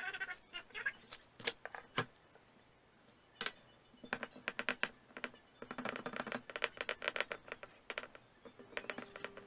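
Light clicks and knocks of hands handling a ceramic pie dish and chopping board while puff pastry is laid over the dish and pressed onto its rim: a few separate sharp knocks in the first half, then a quick run of clicking from about four seconds in.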